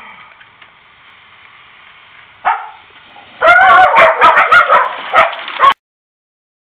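Dog barking: a single bark about two and a half seconds in, then a quick run of loud barks that stops abruptly.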